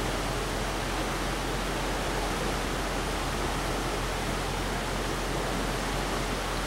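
Steady rushing of a stream's flowing water, an even hiss with no break.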